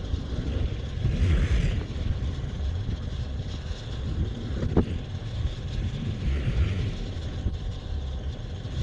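Motor vehicle driving: a steady low engine and road rumble, with two swells of hiss.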